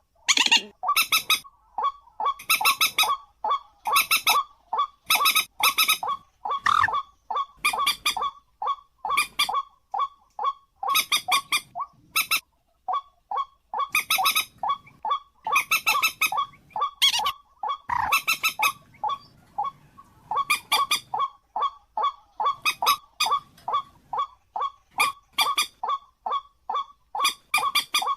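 A bird calling over and over in quick runs of short notes, several a second, some of them much louder than the rest, with a few brief pauses between runs.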